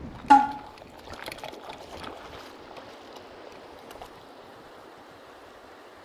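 Stream water running steadily over rocks. About a third of a second in, a short, loud, pitched blip cuts in over it, followed by a few faint clicks.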